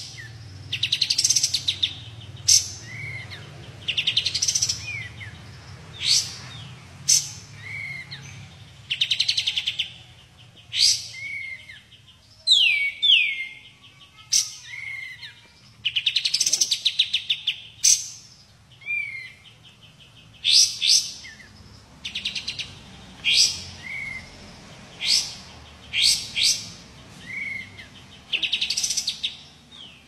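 A caged bulbul, the songbird sold in Indonesia as 'kapas tembak', calling over and over, a short loud phrase every one to two seconds. Each phrase mixes sharp whistled notes with rapid rattling trills.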